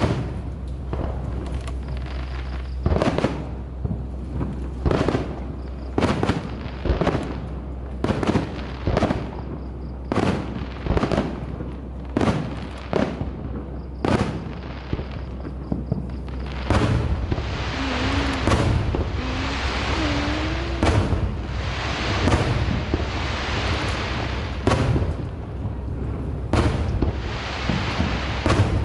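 Aerial fireworks bursting: a string of sharp bangs about one a second, turning after about 17 seconds into a denser barrage with continuous crackling under the bangs.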